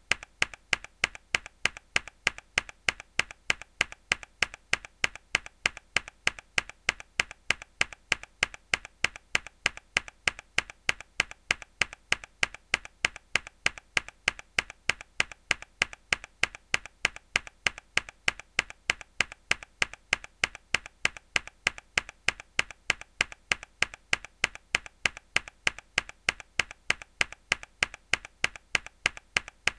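A single hard key press on a mechanical keyboard, looped: a sharp click repeated evenly about three times a second.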